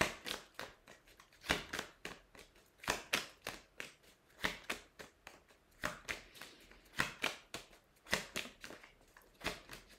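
Oracle cards being shuffled by hand: an irregular run of soft card clicks and slaps, with a louder snap about every second.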